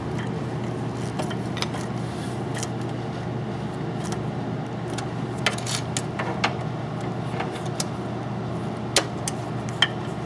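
A screwdriver tightening screws into the rear fan mount of a steel computer case: scattered small metallic clicks and scrapes, two sharper ones near the end, over a steady low hum.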